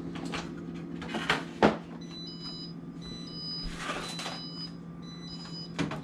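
Refrigerator door-open alarm beeping about once a second, starting about two seconds in: the warning that the door has been left open too long. A couple of sharp knocks come early on and another near the end, over the steady hum of the fridge.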